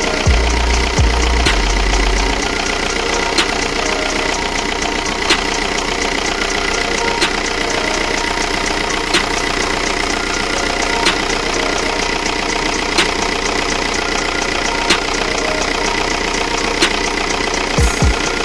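VW Golf 4's 1.9 TDI four-cylinder turbodiesel idling steadily, with a sharp click about every two seconds. A low rumble stops about two seconds in.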